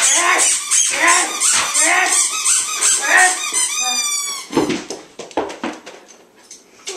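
A dog at play making short, high-pitched squeaks about twice a second for some four seconds, with a few gliding squeaks near the end of the run. After that come a few scattered soft knocks.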